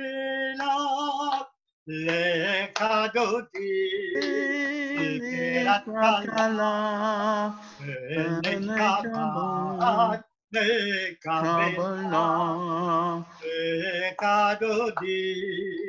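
A man singing a Jewish liturgical melody solo in a wavering voice with vibrato, pausing briefly about two seconds in and again about ten seconds in.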